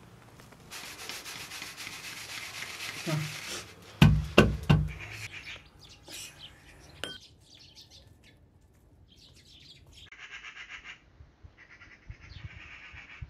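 A hand mixing dry flour with spice in a metal bowl, heard as two short spells of quick rubbing and rustling near the end. Earlier there is a steady hiss for a few seconds, then three loud thumps about four seconds in.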